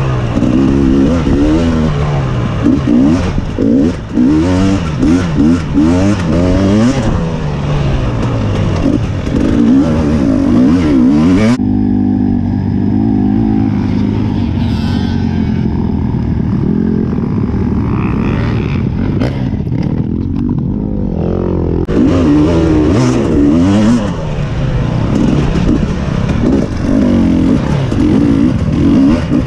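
Engine of an off-road racing machine revving up and down over and over as the rider works the throttle and shifts through rough terrain. It settles into steadier, lower revs for about ten seconds midway, then picks up again.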